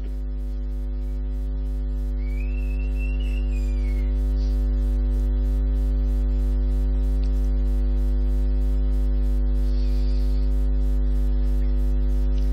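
Steady electrical mains hum and buzz from the microphone's public-address system during a pause in the recitation. It rises slightly over the first few seconds, then holds level.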